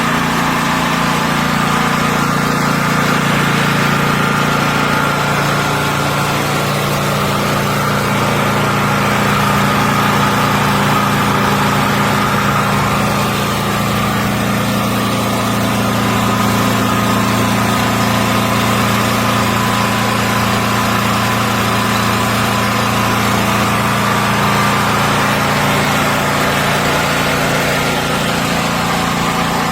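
WEN DF5600X dual-fuel portable generator's engine running steadily on gasoline with no load, on its first run after fresh oil. It runs smoothly and evenly.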